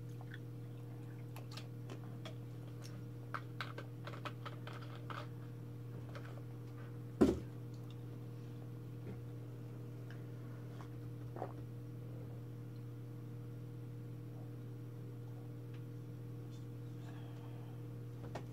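A steady low hum, with scattered small clicks and taps in the first few seconds and one sharp knock about seven seconds in.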